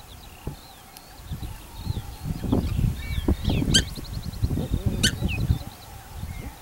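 Birds calling at a feeding spot: songbirds chirp lightly in the background, and two short shrill calls ring out about three and a half and five seconds in. Through the middle runs a louder low rumble.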